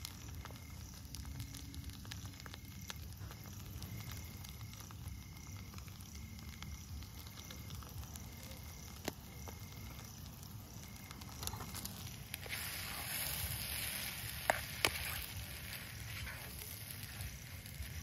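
Food sizzling in a pan on a portable gas stove, with scattered small crackles. About two-thirds of the way in, a louder hiss rises for a few seconds with two sharp metal clicks as the pan is lifted off the burner.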